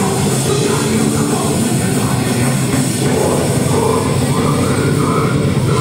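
Punk rock band playing live and loud: distorted electric guitar, bass and a full drum kit in a steady, unbroken wash of sound.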